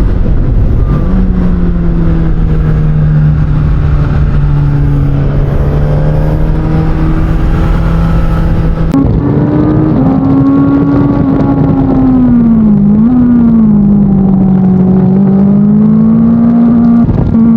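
Suzuki GSX-S1000's inline-four engine through an SC-Project aftermarket exhaust, heard while riding. It holds a steady note for several seconds, steps up in pitch about halfway through, then eases down and back up.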